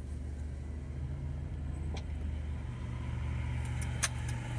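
Car engine running with a steady low hum, heard from inside the cabin as the car rolls slowly forward, with two short sharp clicks about two seconds apart.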